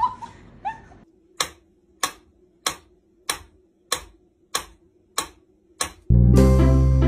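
Mechanical pendulum metronome ticking steadily, about eight sharp ticks roughly 0.6 s apart. About six seconds in, plucked-string music starts and is louder than the ticks.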